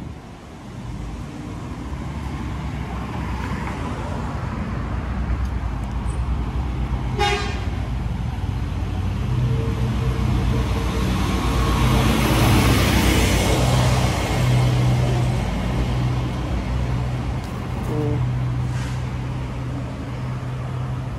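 City street traffic: vehicles passing, swelling about twelve seconds in, with a short car-horn toot about seven seconds in and a steady low engine hum from about nine seconds on.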